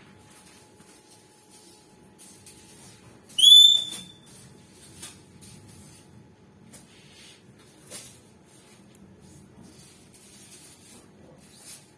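Lovebird giving a single loud, high whistled call about three and a half seconds in, rising slightly and then holding for half a second. Faint, short scratchy sounds come and go around it.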